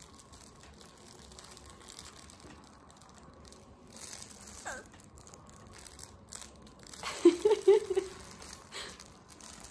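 Faint rustling and crinkling of a baby's soft cloth crinkle book being handled, with a short falling vocal sound about halfway through and a quick run of short voice sounds, the loudest part, about three-quarters through.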